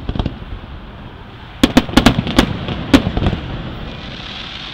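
Aerial firework shells bursting. After a quieter start come several sharp bangs in quick succession from about a second and a half in, then smaller pops and a softer hiss near the end.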